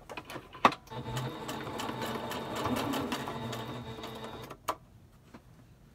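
Electric home sewing machine stitching through fabric in one steady run of about three and a half seconds. There is a sharp click just before it starts, and another click shortly after it stops.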